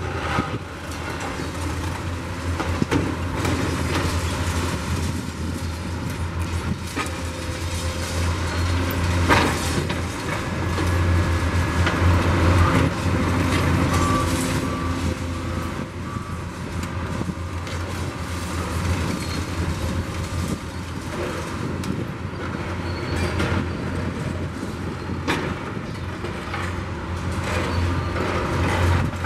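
Diesel engines of Kobelco and Hitachi demolition excavators running steadily while their attachments break apart brick and concrete, with rubble crunching and clattering down. A sharp crash about nine seconds in is the loudest moment.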